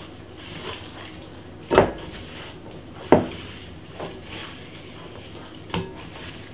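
A gloved hand rubs and squeezes seasoned raw steak in a glass mixing bowl, giving soft handling noise. Four sharp knocks sound as the bowl or hand bumps, the loudest two about two and three seconds in.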